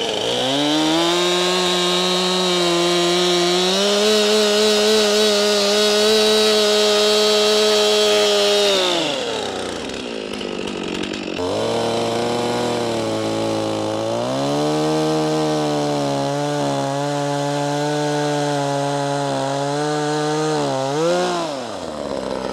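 Two-stroke chainsaws with freshly sharpened chains cutting through log rounds at full throttle: a Stihl runs steadily under load, then drops back about ten seconds in. A Tanaka then revs up and cuts steadily at a slightly lower pitch, revving briefly and dropping off near the end.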